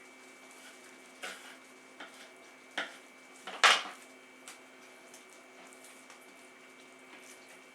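Kitchen utensils knocking and clinking: about five sharp knocks over a few seconds, the loudest about three and a half seconds in, over a faint steady hum.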